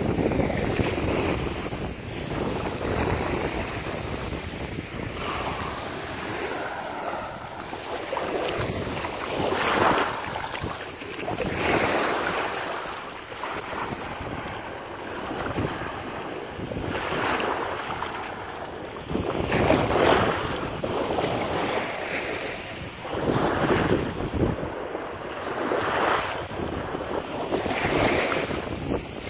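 Small waves breaking and washing up on a sandy shore, swelling and falling away every couple of seconds, with wind buffeting the microphone.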